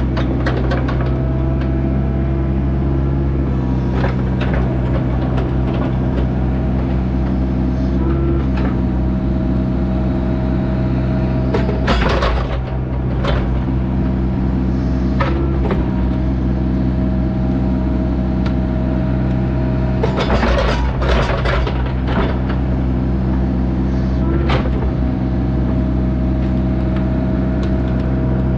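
Heavy construction machine's diesel engine running steadily, with scattered knocks and clatters over it, clustered about twelve seconds in and again around twenty seconds.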